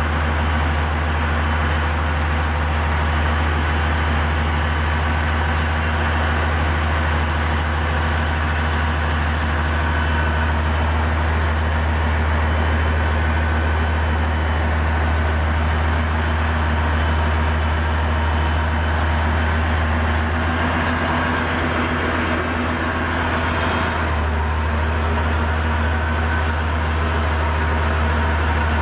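Heavy diesel earthmoving engine running steadily under load with a deep, constant drone. Its low hum shifts briefly about two-thirds of the way through, then settles back.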